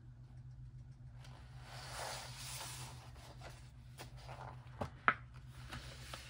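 Paper rustling as hands slide over and smooth the pages of a paperback coloring book, with a few sharp taps about four to five seconds in, the loudest just after five seconds. A steady low hum runs underneath.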